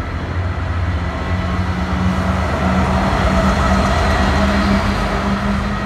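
Diesel train engine running with a steady drone, louder toward the middle and easing off near the end.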